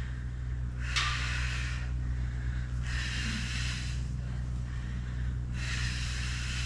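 A woman breathing hard during exercise reps: three long breaths about two seconds apart, over a steady low hum.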